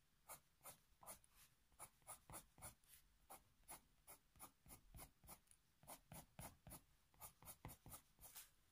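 Faber-Castell Polychromos coloured pencil scratching over paper in quick, short hatching strokes, about three a second, faint and even.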